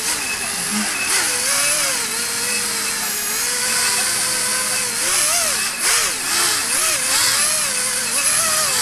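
Youbi XV-130 drone's motors and propellers running, a loud whine over a strong hiss, its pitch wavering up and down as the throttle changes, more so in the second half. The drone has a bad motor.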